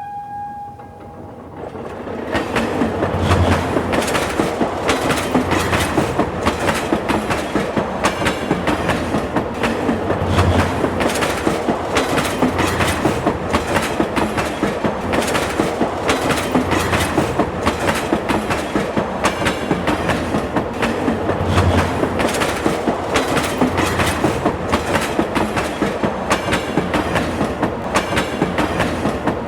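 Train rolling past with a rapid, regular clickety-clack of wheels over rail joints, building up over the first two seconds and then holding steady.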